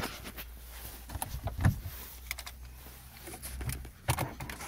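Handling noise from fingers on the phone: irregular knocks and rubbing over a low rumble.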